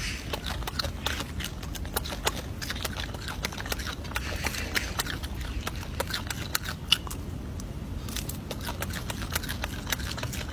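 Golden snub-nosed monkey eating, with irregular small crunching clicks from its mouth and hands on the food over a steady low rumble.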